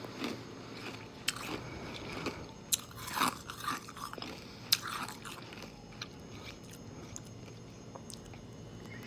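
Mouth working against a piece of clear ice held to the lips: wet mouth sounds with scattered sharp clicks and crackles, thinning out after about five seconds.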